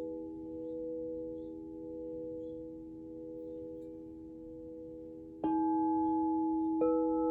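Alchemical crystal singing bowls ringing on, a few sustained tones slowly wavering in loudness as they fade. Two sudden strikes, about five and a half and seven seconds in, each set a fresh chord of pure tones ringing, louder than before.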